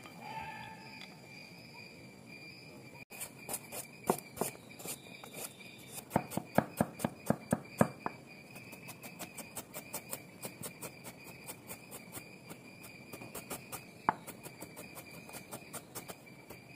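A large steel chef's knife chopping garlic on a wooden cutting board: quick knocks of the blade on the board, fastest and loudest for a couple of seconds midway, then lighter, steady chopping.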